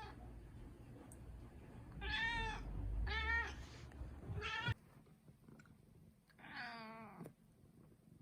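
Turkish Angora cat meowing: a quick run of three short meows in the first half, then one longer, drawn-out meow about two-thirds of the way in.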